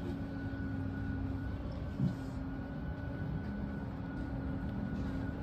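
Tour boat's motor running steadily, a low rumble with a faint steady whine, and a brief bump about two seconds in.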